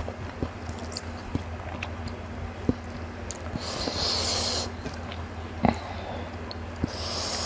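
Close-up eating sounds from a meal eaten by hand: scattered soft clicks of chewing and of fingers picking at the food on the plate, with two breathy sniffs, one about four seconds in and one near the end.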